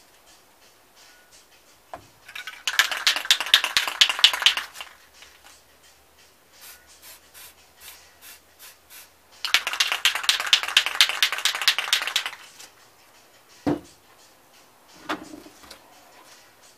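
Aerosol spray-paint can spraying in two bursts of hiss, each about two and a half seconds long. Near the end comes a single knock and a short scrape as a round plate is set onto the canvas.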